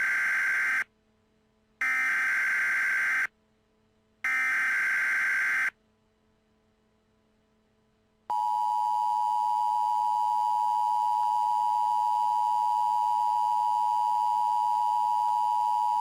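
Emergency Alert System header: three raspy data-tone bursts, each about a second and a half long with a short gap between them, then a pause, then about eight seconds in the steady two-tone attention signal starts and holds. Together they announce a new alert about to be read out.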